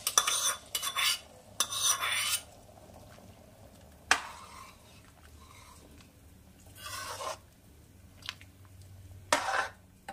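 A hot tempering of ghee, cumin and dried red chilli is scraped with a metal ladle out of a small pan into a kadai of dal, sizzling and rasping for the first couple of seconds. The ladle then stirs the thick dal, scraping and knocking against the metal kadai a few times.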